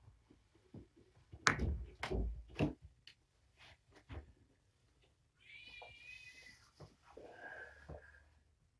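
A few heavy thumps as a person gets up off the floor and steps barefoot across a carpet. Then a kitten mews twice, two high, drawn-out cries, the second lower than the first.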